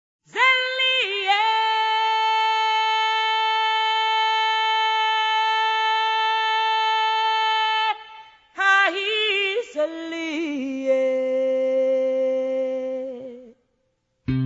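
A solo unaccompanied voice singing two long phrases. The first rises with a quick ornamented turn into a note held steadily for about six seconds. After a short break, the second phrase wavers through several turns and settles on a lower held note, then stops about a second before the end.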